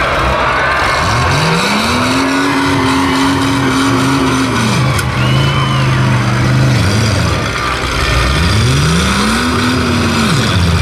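Demolition derby car engines idling steadily. One engine is revved twice: about a second in it climbs and is held high for a few seconds before dropping back, and near the end it rises, holds and drops again.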